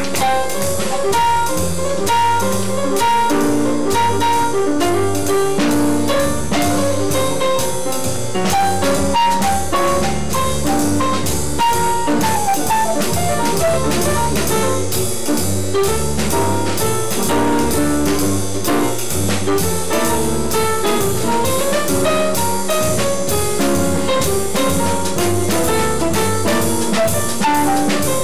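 Live small-group jazz: piano soloing over upright bass and drum kit, with the trumpet and tenor saxophone resting.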